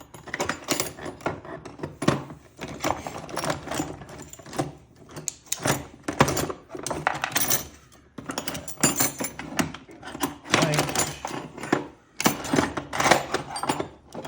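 Small metal parts clinking and rattling as they are rummaged through and handled, in clusters of quick clicks with short pauses.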